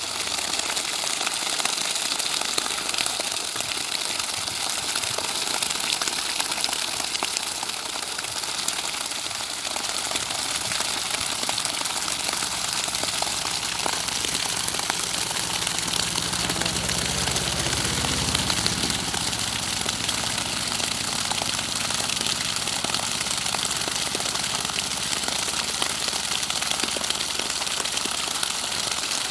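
Water from a 2 HP eight-stage V4 submersible pump pouring steadily out of a 2-inch delivery pipe and splashing onto the ground. A low hum swells and fades about halfway through.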